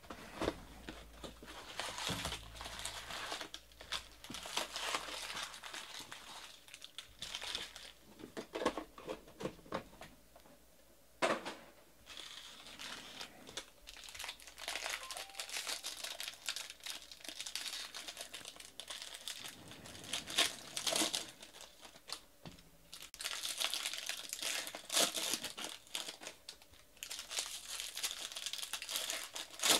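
Baseball card pack wrappers torn open and crinkled by hand while the cards are shuffled and stacked, an irregular rustle with sharp crackles now and then.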